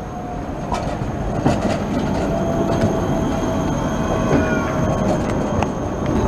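Škoda 13T low-floor tram rolling slowly past close by on curved track, running with a steady whine. Its wheels click sharply over the rails several times and squeal faintly on the curve about four seconds in.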